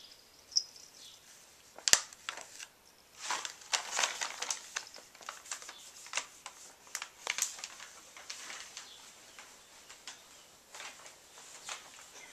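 Pet rabbit crunching a timothy hay treat: irregular crisp crunches and clicks in short clusters, with one sharp, louder click about two seconds in.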